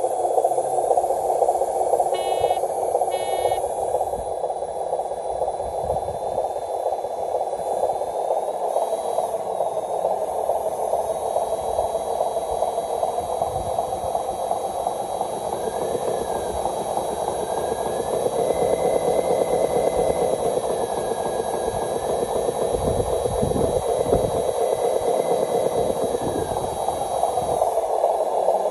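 Radio-controlled model truck's electric drive motor and gearbox whining steadily as it hauls a trailer loaded with dirt. The pitch rises and falls at times in the second half. Two quick bursts of beeps come about two and three seconds in.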